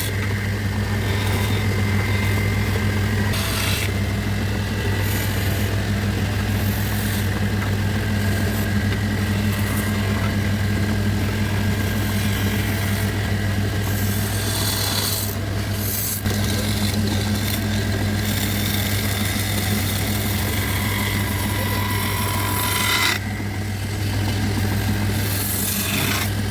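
An electric woodworking machine hums steadily while a tool scrapes and rasps against wood, the scraping shifting in strength now and then.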